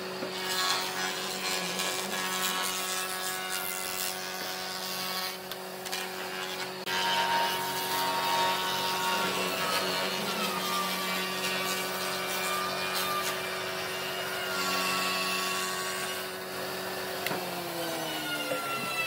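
Jointer running with a steady whine while the edge of an end-grain pine panel is fed across its cutterhead, the cut adding a rough shaving noise. Near the end the machine's pitch falls as it slows down.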